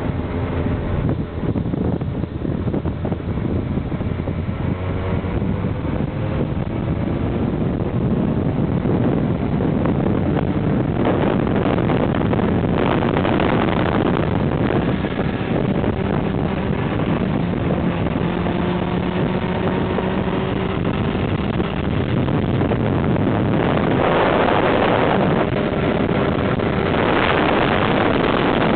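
Motorcycle engine running under way with heavy wind rush on the microphone; the engine note climbs over the first few seconds, then holds steady at cruising speed.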